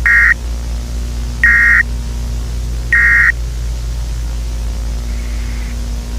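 Emergency Alert System end-of-message data bursts: three short digital squawks, each about a third of a second and about a second and a half apart, over a steady low broadcast hum and hiss. They mark the end of the monthly EAS test.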